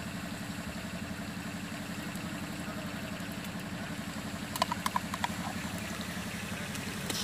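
A steady, low, throbbing mechanical hum, like an idling engine or motor running in the background. About two-thirds of the way through come a few quick metal clinks of a spoon against a small tin.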